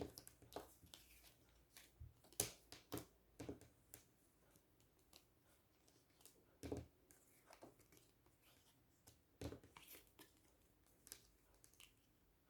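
Faint handling of tarot cards: soft, irregular clicks and rustles as cards are picked up and turned over on a table.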